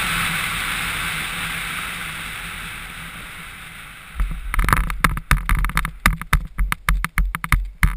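Wind rushing over a helmet camera's microphone during parachute canopy flight, a steady hiss that slowly fades as the canopy slows on final approach. About four seconds in it turns into loud, irregular thumps and buffeting as the jumper comes in low over the landing field.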